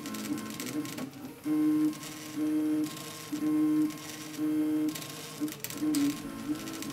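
RepRap Mendel 3D printer printing in ABS, its stepper motors whining as the print head moves back and forth at a 100 mm/s feed-rate setting. The whine comes in steady-pitched runs of about half a second, four louder ones in the middle, then shorter ones near the end.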